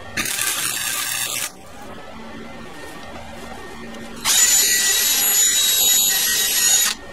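Bauer 20V cordless drill spinning an attachment against a metal exhaust pipe for about two and a half seconds, starting about four seconds in and cutting off sharply, with a steady whine over the grinding noise. A shorter hiss lasting about a second comes just before, near the start.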